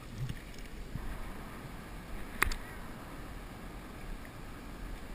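Water lapping and splashing around a plastic kayak as it is paddled and handled, with a few faint knocks and one sharp click about two and a half seconds in.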